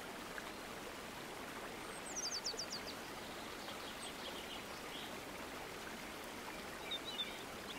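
Faint steady hiss with small birds chirping in the background: a quick run of about six high notes about two seconds in, and a few more chirps near the end.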